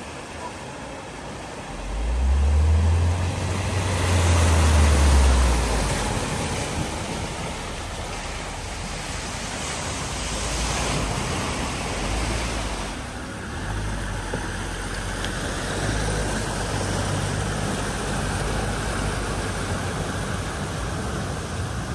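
Vehicles driving through deep, fast-flowing floodwater at a ford: the rush and splash of water pushed aside by the wheels, over a low engine rumble that is loudest between about two and six seconds in.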